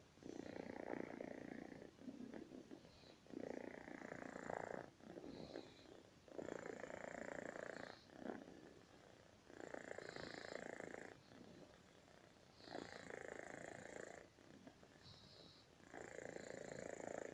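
Domestic cat snoring, with a long noisy breath about every three seconds, six in all.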